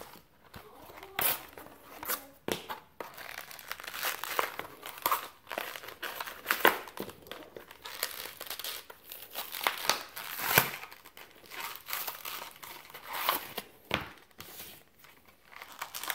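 Product packaging being torn open and crinkled by hand: a cardboard broadhead package ripped apart, then the shiny wrapping around the broadheads unfolded, in irregular crackling rustles with sharper tearing bursts now and then.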